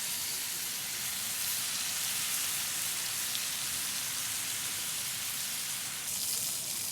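Food sizzling in a hot pan: a steady, even hiss.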